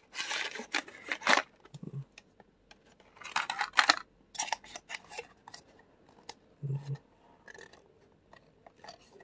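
A charging cable's retail packaging being opened by hand: several irregular bursts of rustling, scraping and cutting noise, with small clicks and short pauses between.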